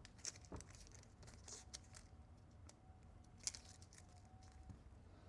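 Faint rustling and small clicks of Kapton tape being handled and pressed onto a circuit board, one click a little louder about three and a half seconds in.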